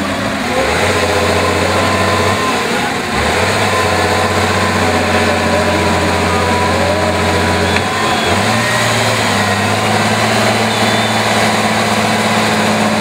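Diesel engine of an off-road trial truck running hard under load in deep mud, belching black smoke, held at high revs with its pitch shifting a few times and stepping up about eight seconds in.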